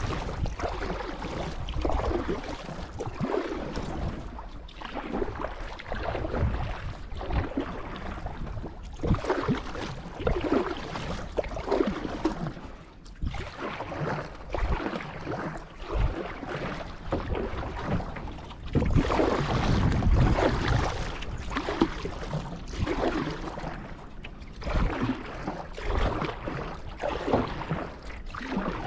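Canoe paddle strokes dipping and pulling through lake water in a steady rhythm, about one stroke a second, with water splashing and trickling along the hull.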